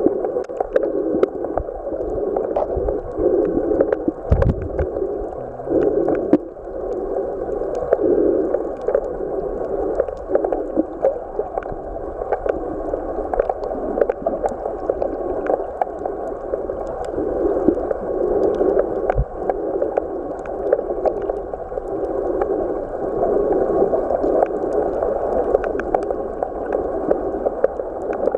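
Muffled underwater water noise picked up by a submerged camera: a churning rush that swells and fades every second or so, with scattered sharp clicks.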